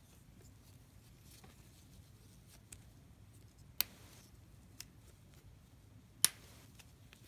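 Stainless steel folding deployant clasp on a Zenith watch strap being worked by hand: two sharp metallic clicks about two and a half seconds apart as it opens and snaps shut, with a few fainter ticks between.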